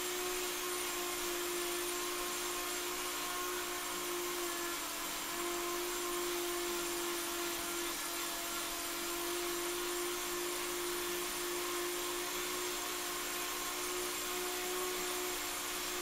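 Steady machinery hum with a constant mid-pitched tone over a high hiss, unchanging throughout.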